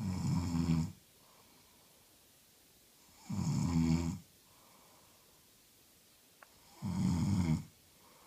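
A sleeping woman snoring: three snores, each just under a second long, about every three and a half seconds.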